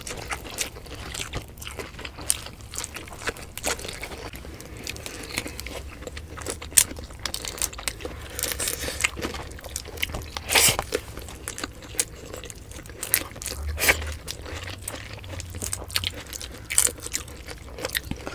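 Close-miked eating sounds of two people eating with their hands: irregular wet chewing, smacking and crunching clicks. A louder crunch comes about ten and a half seconds in.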